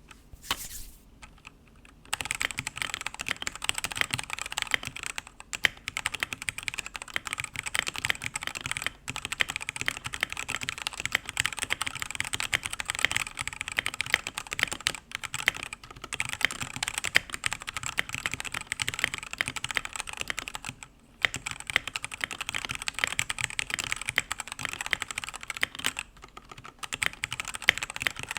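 Redragon UCAL K673 Pro 75% mechanical keyboard being typed on in a fast, steady stream of key clacks, with a couple of brief pauses.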